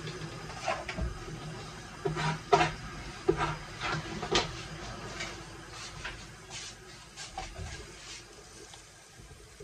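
Light knocks and clicks of a utensil against a stainless steel pot while shredded cabbage is pressed down in it. The knocks are scattered and thin out toward the end.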